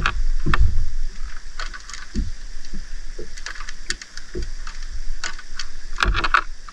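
Irregular knocks, clicks and rattles of handling on a fishing boat, with a quick cluster of them about six seconds in.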